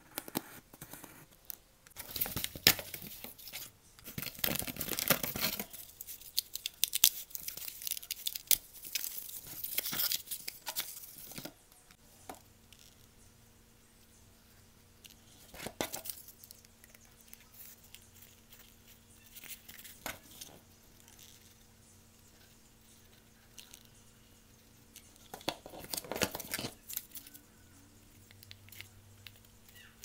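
Cardboard being cut and torn by hand: about ten seconds of scratchy, ripping noise. Then a few single clicks and one more short burst of the same.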